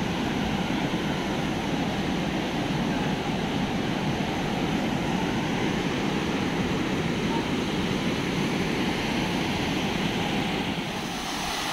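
Rushing mountain river water: a steady, unbroken roar of fast water tumbling over rocks.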